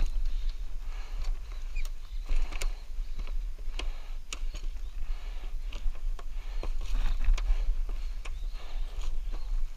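Footsteps knocking and clicking on the rungs of a steep canopy-walkway ladder as someone climbs it, over a steady low rumble on the microphone, with hard breathing from the climber.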